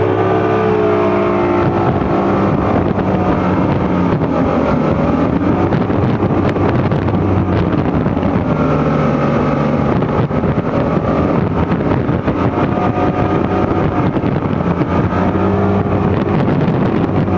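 Yamaha outboard motor running hard under load as it tows a water-skier, its engine note holding fairly steady with small rises and dips. Wind buffets the microphone and the wake rushes underneath.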